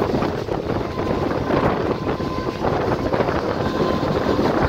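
A train running along the track, heard from on board: a steady rumble and clatter of wheels on rails, with wind buffeting the microphone.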